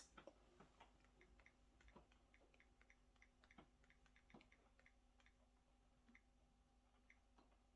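Near silence: room tone with a faint hum and a few scattered, irregular small clicks.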